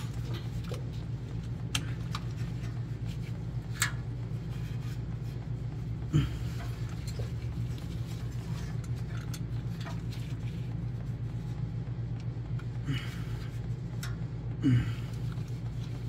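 A few light metallic clicks and taps from small pliers working a seized harness bolt inside the open transmission, over a steady low hum.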